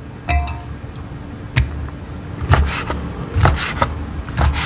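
Chef's knife chopping peeled squid on a plastic cutting board: sharp knocks of the blade hitting the board, irregularly spaced, roughly one a second.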